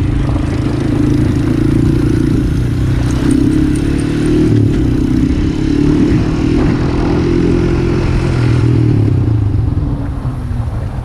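Honda TRX250EX ATV's single-cylinder four-stroke engine running hard at steady high revs while riding, with the revs falling off near the end.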